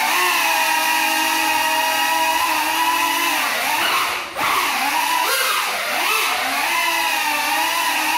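Small FPV quadcopter's motors and propellers buzzing in flight, on damaged props. The pitch holds steady, then swoops up and down with the throttle, with a brief drop-out about four seconds in before it revs back up.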